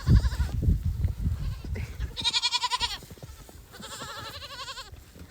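Young goats bleating twice, a loud wavering bleat about two seconds in and a quieter one near the end, over low thuds and scuffling in the first few seconds.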